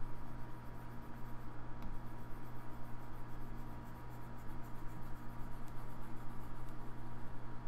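Steady low electrical hum with an even hiss from the narration microphone's background, with no distinct events.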